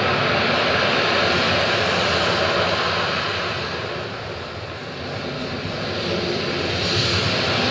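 Recorded ambient soundtrack of a steady rushing roar, with no melody or beat, that eases off about halfway through and swells again near the end.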